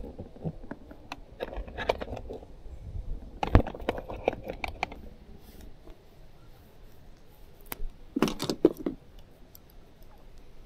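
Scattered light clicks, rattles and knocks of small hard objects being handled, likely fishing tackle, busier in the first few seconds, with louder knocks about three and a half seconds in and again around eight seconds.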